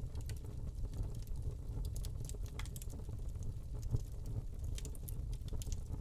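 Wood log burning in a fireplace: a low steady rumble of flame with scattered sharp crackles and pops, coming in clusters about two seconds in and again near the end.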